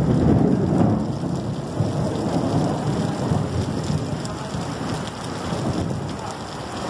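Heavy rain pouring down, with a low rolling rumble of thunder that is loudest at the start and dies away over the next few seconds.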